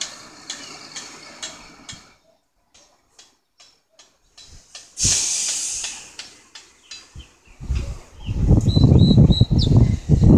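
Wind buffeting the microphone, a loud low rumble that sets in about three-quarters of the way through. Before it come scattered clicks and a brief hiss about five seconds in.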